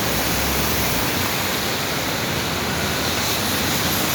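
Heavy rain falling, a steady, even rushing hiss.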